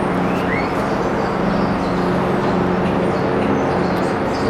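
Steady rumble and hum of an approaching subway train, with a few faint short high squeaks.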